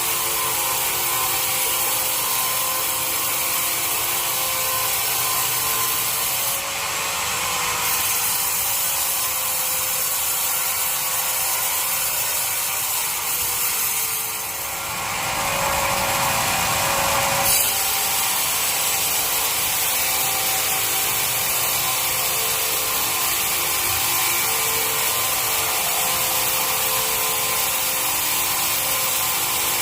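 Sawmill bandsaw running and cutting through teak wood: a steady machine noise with a motor hum, its tone shifting briefly about seven seconds in and again around fifteen to eighteen seconds in.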